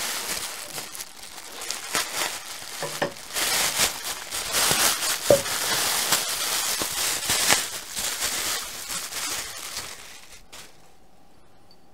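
Clear plastic wrapping crinkling and rustling as it is pulled off a small porcelain lid by hand. It falls quiet about ten seconds in.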